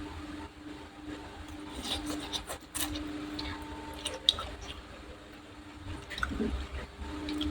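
Close-miked mouth sounds of a person eating Thai instant noodles: scattered short, wet clicks of chewing.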